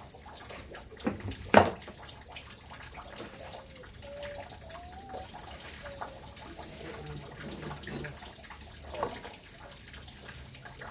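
Tools and parts being handled while a bar and chain are fitted to a chainsaw: a click, then a sharp clack about a second and a half in, then soft handling noises over a steady hiss. A few faint short whistle-like notes come in the middle.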